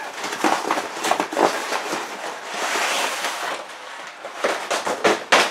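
Cardboard packaging crackling and rustling as a telescopic pole in a fabric carry bag is pulled out of it, with a longer sliding rustle about halfway through and sharp crackles near the end.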